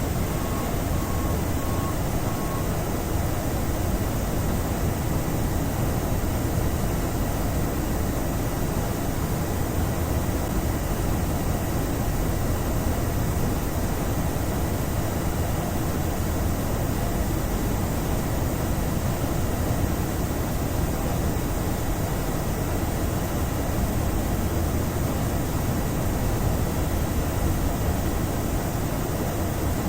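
Steady rushing noise of engines and airflow in a Boeing 737-800's cockpit during the climb shortly after takeoff, even and unchanging.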